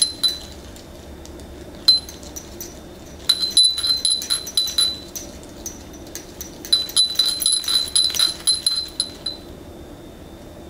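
Handmade glazed ceramic furin wind bell moved by hand so its clapper clinks against the rim, giving bright, high ringing strikes. There is a single strike at the start and another about two seconds in, then two runs of quick clinks, one around three to five seconds in and one around seven to nine seconds in.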